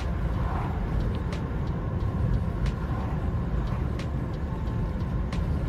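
Inside the cab of a Vauxhall Combo van with a 1.3 CDTi Fiat Multijet turbo diesel, driving at a steady road speed: a steady low rumble of engine and road noise, with a few faint ticks.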